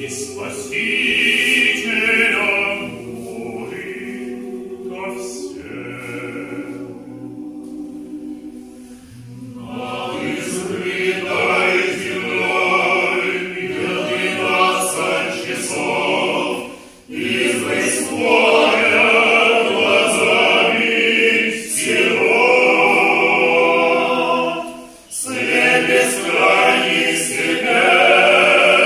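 A small male choir singing unaccompanied Orthodox church music. The singing grows softer a few seconds in, then swells, with short breaks between phrases about 17 and 25 seconds in.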